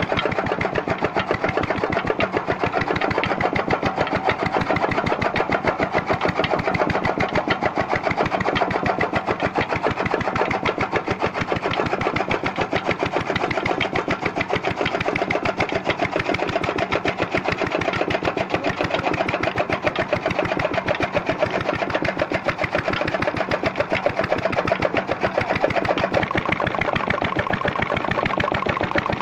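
Small stationary engine running steadily with a fast, even beat, turning a flat-belt pulley and line shaft that drives a fodder chaff cutter.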